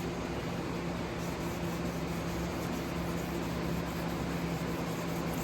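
Hand wet-sanding of a plastic headlight lens with 1000-grit wet sandpaper, a steady soft rasping of paper rubbing the plastic, over a steady low hum.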